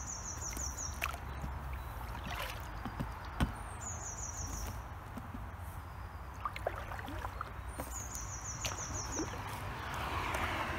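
Canoe paddle strokes in calm river water, with scattered drips and light knocks and a splashier stroke near the end, over a steady low rumble. A small bird sings a short high trill three times, about every four seconds.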